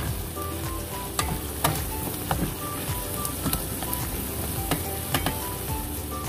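Squash cubes, shrimp and onion sizzling in a stainless steel pot as a wooden spatula stirs them, with a steady hiss and a dozen or so sharp knocks and scrapes of the spatula against the pot. Background music plays underneath.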